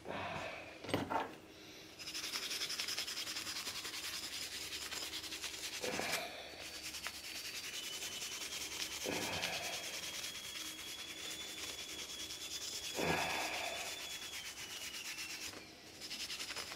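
Hand wire brush scrubbing a swamp cooler motor pulley clean, rapid steady strokes of bristles on metal starting about two seconds in and stopping shortly before the end, with a few light knocks as the pulley is handled.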